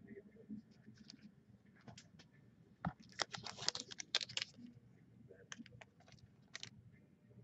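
Trading cards being handled and sorted: scattered light clicks and ticks, with a quick flurry of them about three seconds in.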